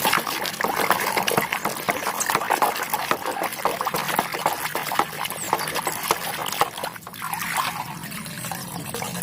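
Wet squelching and crackling as a plastic toy is cleaned of blue mud-like slime with water, a dense run of small sticky pops and splashes.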